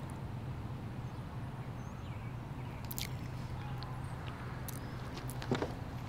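Quiet outdoor background: a steady low hum with a few faint clicks, about halfway through and again near the end.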